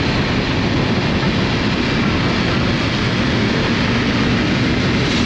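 Riding noise from a BMW S1000RR at speed: a steady rush of wind over the microphone, with the engine's low hum running underneath.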